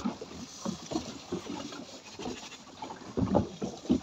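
Irregular knocks and bumps of handling on a small open fishing boat, with wind on the microphone. A louder knock comes a little after three seconds.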